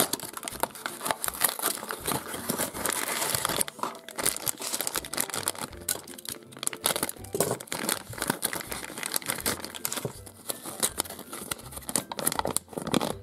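Plastic wrapper packets crinkling and rustling as they are handled, with tearing, as a small cardboard candy box is opened and emptied. An irregular, continuous run of crackles with small sharp clicks.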